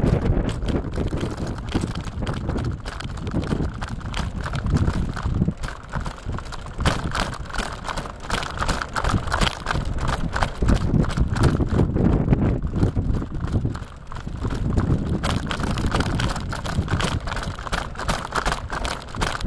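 A bicycle being ridden, with dense, irregular rattling and clattering from the bike over the path and a constant low rumble.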